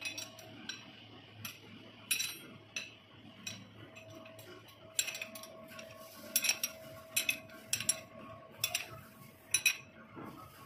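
Irregular sharp metallic clinks of steel tools and parts being handled at a lathe's tool post and cross slide, most frequent in the second half, over a faint steady hum.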